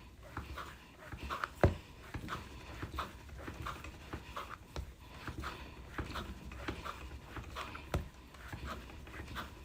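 Clay being wedged by hand: a steady rhythm of short pushes and presses on the work surface, about two to three a second, with hard breathing from the effort. Two sharper knocks stand out, near the start and about two-thirds through.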